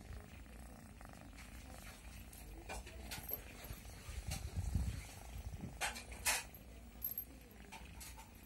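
Domestic cat purring while being stroked, a steady low rumble that swells about halfway through, with a few brief rustles and clicks of handling over it.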